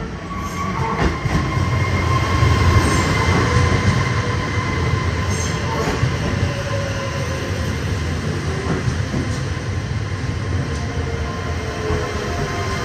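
Trenitalia Pop ETR104 electric multiple unit pulling in along a station platform and slowing, with a low running rumble and a high steady squeal. It is loudest about two to three seconds in as the front passes, and lower tones slide down in pitch as it brakes.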